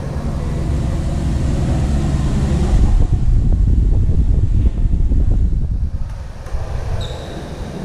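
Low rumbling wind noise of moving air buffeting the microphone, swelling in the middle and easing off near the end. A brief high squeak sounds near the end.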